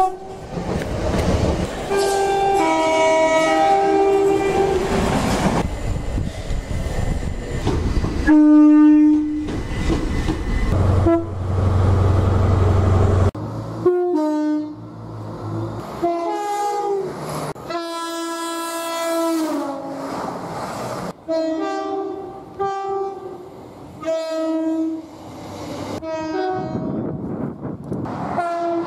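A run of train two-tone horns, about eight separate soundings from different trains. Each is a short blast that steps between two pitches, and one longer blast slides down at its end. Passing-train rumble and rail noise fill the gaps.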